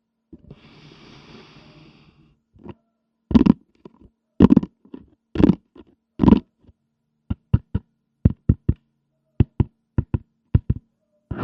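A short soft rustle, then a series of knocks: four heavier ones, then about a dozen quick, sharp clicks, as small toy pieces are handled and set down one after another.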